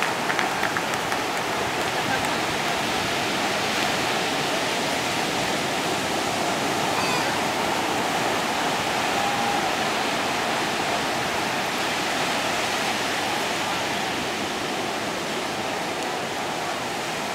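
Steady rush of ocean surf breaking on the beach as swimmers plunge through the waves, under a low murmur of spectators. A little clapping dies away at the start.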